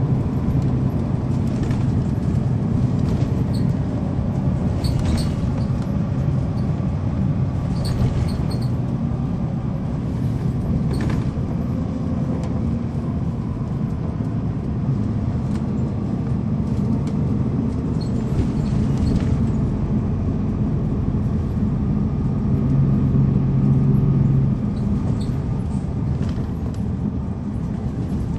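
Cummins ISL9 inline-six diesel engine of a 2009 NABI transit bus running as heard from inside the cabin, a steady low rumble that grows louder for a couple of seconds near the end and then eases off. Faint light clicks and rattles come and go over it.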